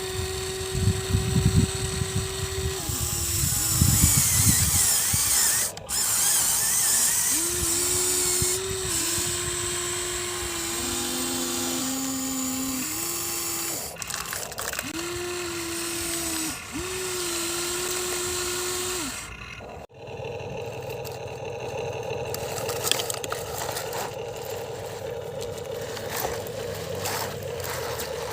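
Electric motors of a Huina 1593 RC excavator whining in repeated runs of one to three seconds, each starting and stopping, with clattering in the first few seconds. After a sudden break about two-thirds of the way through, a steadier, higher motor whine runs on.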